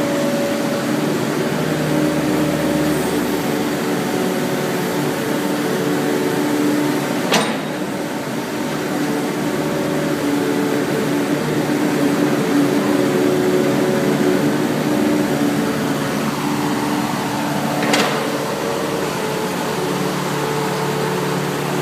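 Hitachi mini excavator's diesel engine running steadily, a hum with several steady tones. There are two sharp knocks, about seven and eighteen seconds in.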